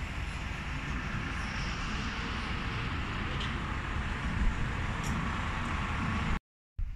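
Steady background traffic noise, a low rumble with a hiss over it, cutting out suddenly near the end.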